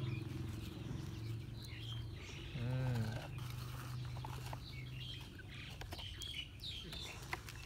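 Birds chirping, over a low steady hum that stops about five seconds in. A short rising-then-falling voiced call comes just before the three-second mark. A few light clicks near the end come as the plastic toy excavator is worked in the sand.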